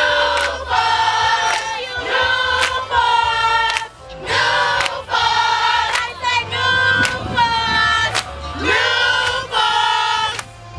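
A step team of girls chanting a cadence in unison, many voices on held pitches in short repeated phrases, over sharp hits keeping a steady beat.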